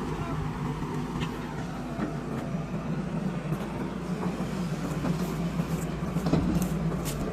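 Heavy diesel engine running steadily with a low, even hum, and a few light clicks in the second half.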